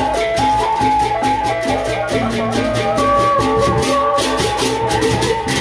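Sasak gendang beleq ensemble playing: large barrel drums beaten with sticks under a fast, even run of clashing cymbal strokes, about five a second, and a repeating melody on tuned gongs.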